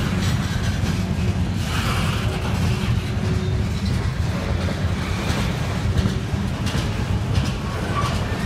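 Wheeling & Lake Erie freight train's covered hopper cars rolling past: a steady rumble of steel wheels on rail.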